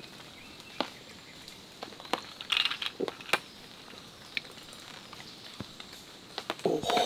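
A man gulping down a lemon sour in swallows, heard as a string of short clicks, with a breath about two and a half seconds in. Near the end comes a voiced, satisfied exhale after the drink.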